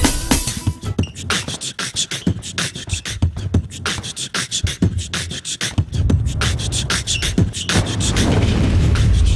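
Beatbox-style vocal percussion: a fast run of clicks and snaps, with a deep bass sound joining about six seconds in.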